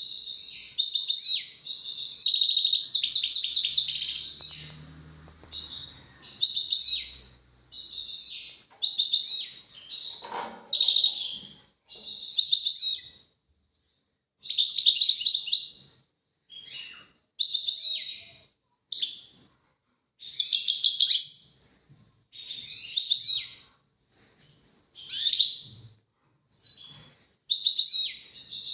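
European goldfinch singing: short, rapid phrases of song, each under a second, following one another with brief pauses.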